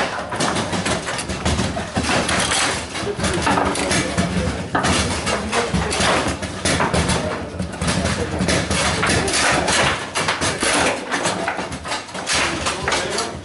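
Dense, irregular clatter of table-football play: hard balls striking rubber-footed figures, table walls and goals, and rods knocking, from many tables at once in a tournament hall.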